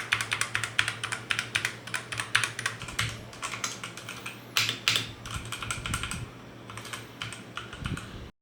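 Typing on an Evofox Ronin TKL mechanical keyboard. Rapid key clicks for the first three seconds give way to slower, sparser keystrokes, with two louder clacks near the middle. The sound cuts off suddenly just before the end.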